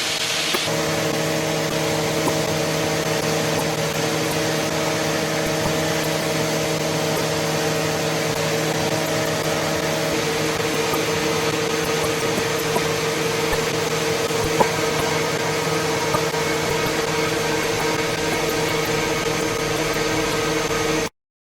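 Kitamura Mycenter-3XD vertical machining center cutting metal: its 12,000 rpm spindle and cutter give a steady whine of several tones over a hiss, with a few light clicks. The tones shift about half a second in and again around ten seconds, as the cut changes. The sound stops abruptly near the end.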